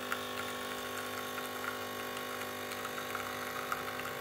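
Home espresso machine's pump running steadily as it brews coffee into a mug.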